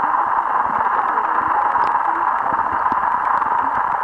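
A steady, loud hiss in the midrange, with faint muffled voices underneath.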